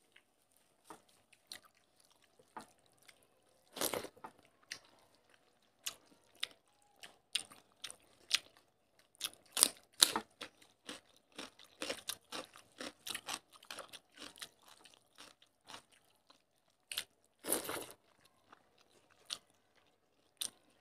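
Close-up chewing and crunching of mouthfuls of rice and fish curry eaten by hand, in scattered sharp crackles and clicks with short gaps, busiest in the middle.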